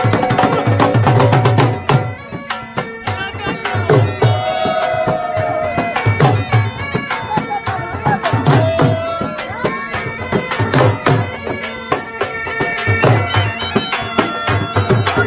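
Traditional folk music: heavy drum beats under a wavering, held melody from a reedy wind instrument.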